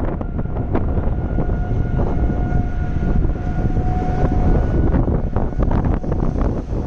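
Strong storm wind buffeting the phone's microphone in a loud, low rush, with scattered sharp clicks. A steady high tone is held over it for about four seconds, starting just after the beginning.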